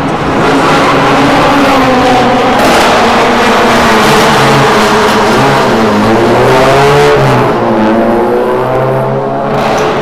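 Toyota Yaris race car's loud modified exhaust, the engine note steady at first, then dipping and climbing twice in the second half.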